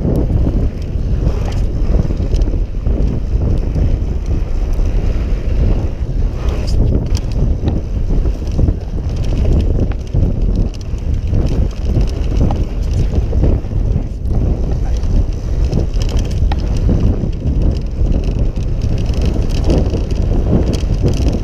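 Wind buffeting the microphone of a camera riding on a mountain bike, over the crunch of tyres on a dry dirt trail and frequent short knocks and rattles as the Yeti SB6 bike runs over bumps.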